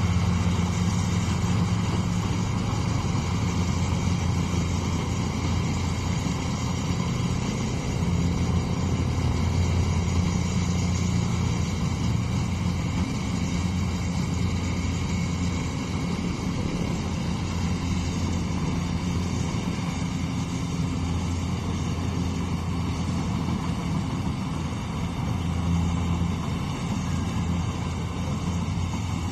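Engine of rice-harvesting machinery running steadily at a constant speed, a low even hum.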